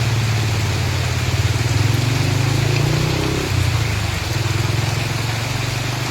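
A vehicle engine idling steadily, with the even hiss of heavy rain over it.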